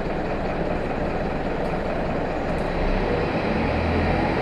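Optare Solo midibus's rear-mounted diesel engine running, heard from inside the passenger saloon, a steady mechanical drone with a low rumble that grows slightly stronger about three seconds in.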